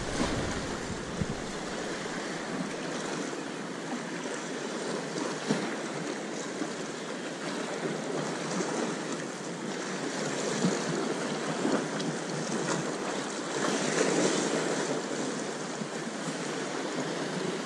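Sea surf washing steadily on the shore, with wind on the microphone and a few small clicks.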